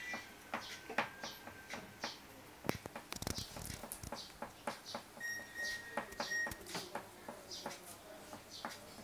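Crayon scratching on paper in short, quick, irregular strokes during colouring, with a few light taps. A thin high tone sounds briefly about five seconds in.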